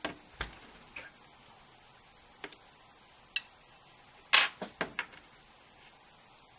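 Small hand tools and parts clicking and clattering on a workbench mat as a precision screwdriver and bits are handled and set down. Single light clicks come a second or so apart, then a quick run of four or five louder knocks about four and a half seconds in.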